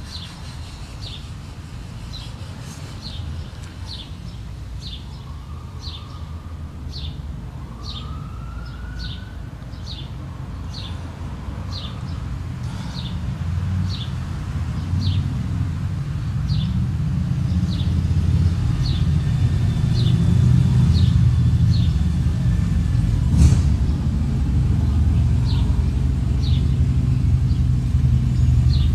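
Breath blown steadily into a tinder bundle of shredded bark to nurse an ember into flame, heard as a low rumble that builds louder and stronger over the second half. A bird chirps over it about one and a half times a second, and there is one sharp click about two-thirds of the way through.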